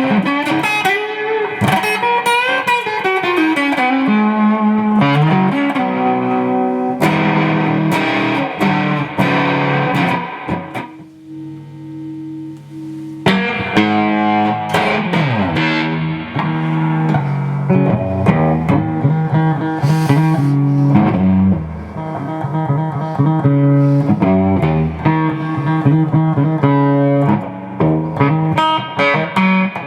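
1986 Fender Contemporary Telecaster electric guitar being played: a run of picked notes and chords, with a sliding bend between about two and four seconds in and a quieter held chord in the middle.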